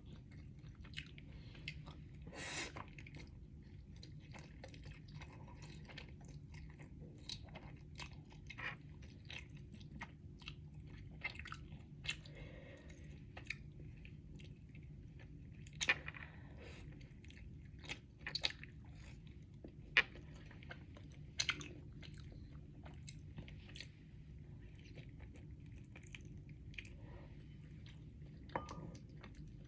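A person chewing Samyang carbonara instant noodles close to the microphone: many small scattered mouth clicks, a few louder ones in the middle, over a steady low hum.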